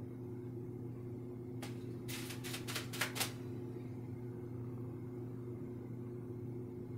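A steady low electrical hum, with a quick run of about seven sharp clicks about two seconds in.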